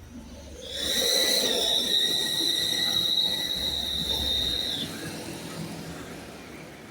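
Vehicle brakes squealing: one steady high-pitched squeal that starts about a second in and holds for about four seconds before cutting off.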